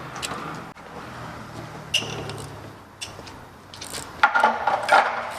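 Hand tools working on an engine's injector clamp: a sharp metallic click about two seconds in, then a flurry of metal clicks and rattles near the end, under a faint low hum.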